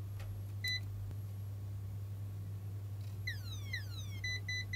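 In-circuit ESR capacitor tester beeping as its probes are put on mainboard capacitors: one short beep about a second in, the single beep it gives for a capacitor that passes; then two quick falling chirps, and near the end a run of repeated beeps, the tester's warning for a failing capacitor, here one reading 10 ohm DCR and judged bad. A steady low hum runs underneath.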